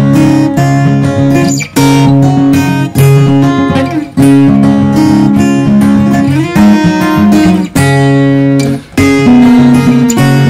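Background music led by strummed acoustic guitar, its chords changing every second or so.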